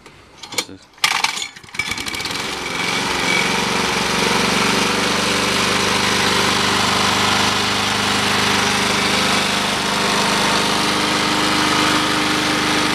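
Briggs & Stratton 5 hp four-stroke engine on a Masport rotary mower starting, catching at the first go about a second and a half in. It then runs steadily and smoothly.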